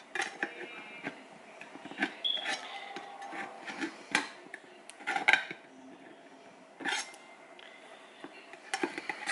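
A steel kitchen knife scraping and knocking inside a tin can of beans: irregular metal-on-metal scrapes with a few sharper clinks, about four, five and seven seconds in.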